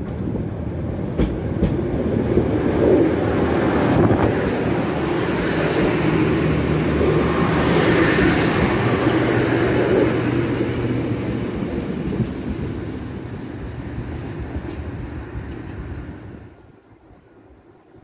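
Irish Rail 2800 class diesel multiple unit passing close by over the switches: diesel engine hum and wheel and rail noise build to a peak as the bogies go past, then fade, dropping away sharply about sixteen seconds in.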